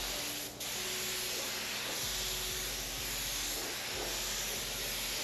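ANI F160 paint spray gun spraying, a steady hiss of compressed air, broken by a short dip about half a second in.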